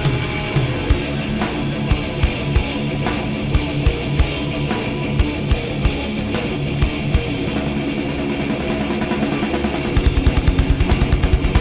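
Live thrash metal band playing, with distorted electric guitar, bass and drums and scattered kick-drum hits. About ten seconds in, the bass drum breaks into a rapid, even run of strokes.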